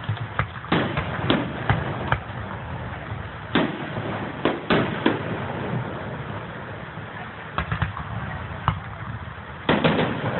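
Fireworks going off: scattered sharp bangs and pops at irregular intervals, with a quick run of several pops near the end, over a steady low rumble.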